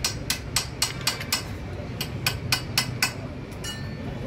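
Sharp metallic clicks, about four a second with a short pause in the middle, as the gears on a Bajaj Pulsar gearbox shaft are turned and slid by hand, ending in a brief rattle. A low steady rumble runs underneath.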